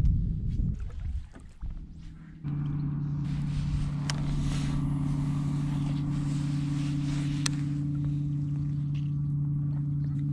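Electric trolling motor on a fishing kayak humming steadily at one constant pitch, starting about two and a half seconds in, with a couple of light clicks over it.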